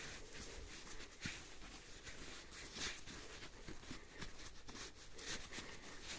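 Faint, irregular scratching and crunching of soil and snow being worked by hand in a small dig hole while searching for a metal detector target.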